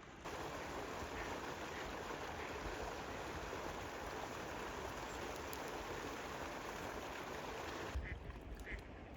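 A steady rushing noise that starts suddenly and cuts off suddenly about eight seconds in, then a couple of short calls near the end.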